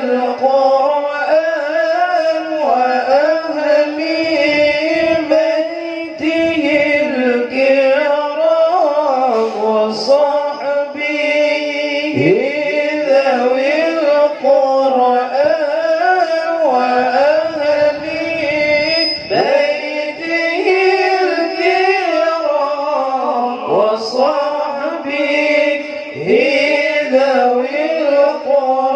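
A solo male voice sings Arabic sholawat unaccompanied into a microphone. The lines are long and melismatic, with held notes that bend and turn in pitch.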